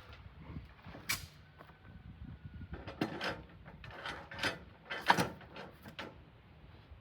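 Irregular knocks and clacks of rough-sawn red oak boards being handled and set onto a portable sawmill's bed, with creaks and a brief faint squeak; the loudest knock comes about five seconds in.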